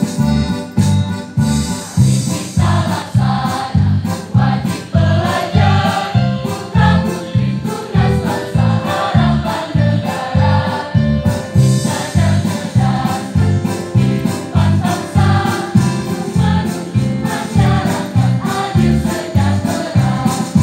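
School choir singing with electronic keyboard accompaniment that keeps a steady beat; the voices come in about two seconds in.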